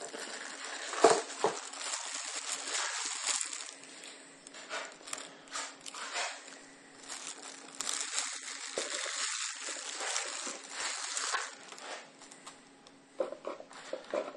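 Clear plastic wrapping crinkling and crackling as it is handled and pulled off a wristwatch, loudest about a second in, with a few sharper clicks near the end.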